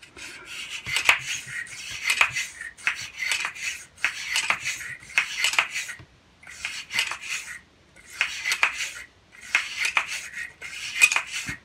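Bore brush being scrubbed back and forth inside a stainless derringer barrel, a metallic rasping repeated about once a second with small clicks, loosening fouling from the bore.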